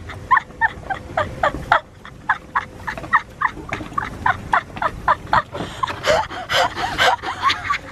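A woman laughing hard in a long run of short, high-pitched pulses, about four a second.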